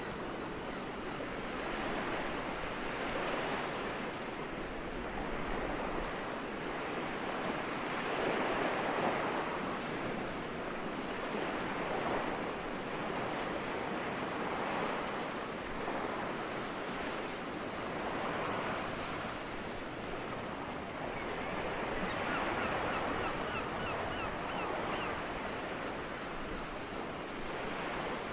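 Soft sea waves washing up on the shore: a steady wash that swells with each wave every few seconds.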